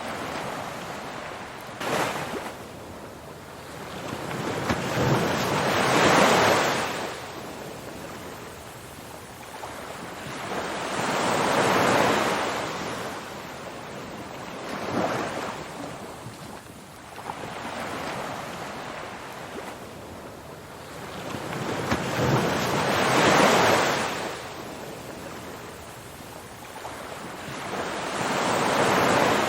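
Ocean surf: waves breaking and washing in, the noise swelling to a peak and falling away every few seconds.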